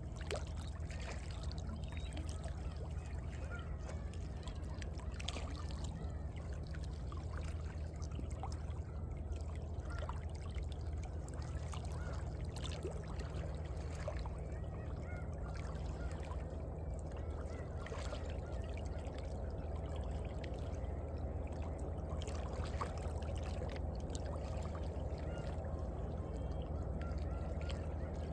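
Small sea waves lapping and sloshing in the gaps between shoreline rocks, with steady gurgling and trickling water and many small irregular splashes.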